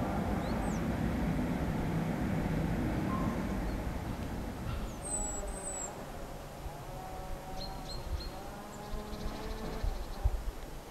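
Outdoor background: a low rumble that fades away about four seconds in, followed by a few short, high bird chirps.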